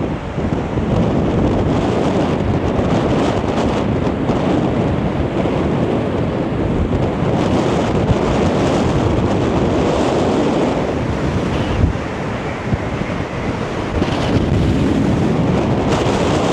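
Strong gale-force wind buffeting the microphone: a loud, steady rushing roar that eases slightly about twelve seconds in.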